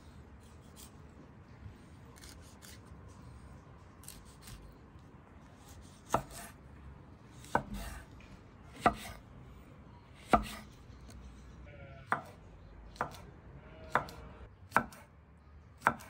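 A large kitchen knife cutting tomatoes and cucumbers on a thick wooden chopping board. From about six seconds in, the blade knocks sharply on the wood about nine times, roughly a second apart.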